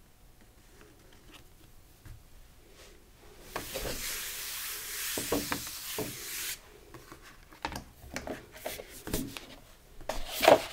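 Palm rubbing across a sheet of paper laid on a gel printing plate, a steady papery rub for about three seconds, burnishing the paper onto the inked plate. Scattered knocks and taps follow as the paper and plate are handled, the loudest near the end.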